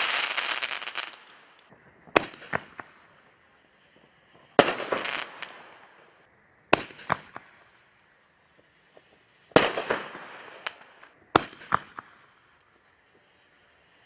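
Ghost Killer artillery shells fired one at a time from a mortar tube: a sharp launch thump, then about three seconds later the shell bursts with a bang and a crackling tail, three times over. A crackling tail from an earlier burst is fading at the start.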